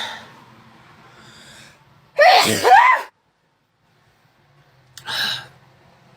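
A person sneezing repeatedly, set off by a nasal swab: the end of one sneeze right at the start, a loud voiced double sneeze about two seconds in, and a shorter sneeze about five seconds in.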